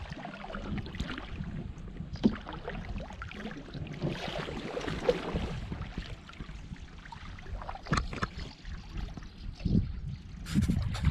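Canoe paddle strokes in river water, the blade splashing and dripping, with wind rumbling on the microphone and a few short knocks.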